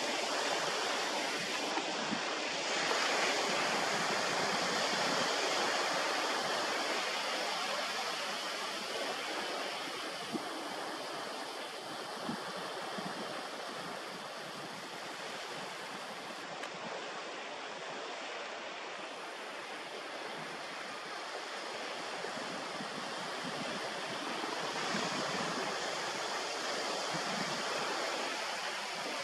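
Sea surf washing onto the shore: a steady rush of small waves, swelling a few seconds in and again near the end.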